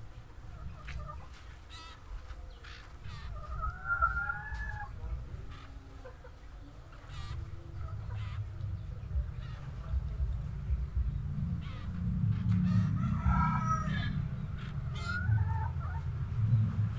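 A rooster crowing twice, long arched calls about 3 seconds in and again about 12 seconds in, with a shorter call near the end, over a steady low rumble and scattered sharp clicks.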